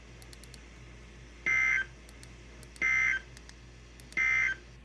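Emergency Alert System end-of-message signal: three short buzzy bursts of SAME digital data tones, each about a third of a second long and about 1.3 seconds apart, marking the end of the alert.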